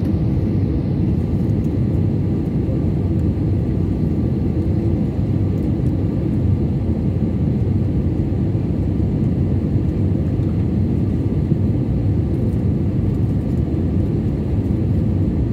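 Airliner cabin noise heard from a passenger seat on the approach to landing: a steady low rumble of engines and rushing air, with a faint steady hum above it.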